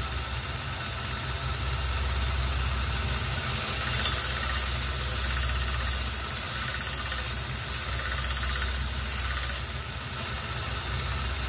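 Small belt grinder running with a steady motor hum. From about three seconds in until near ten seconds, the steel bit of a splitting axe is pressed against a worn, nearly grit-free sanding belt used for polishing, which adds a hissing grind that throws sparks.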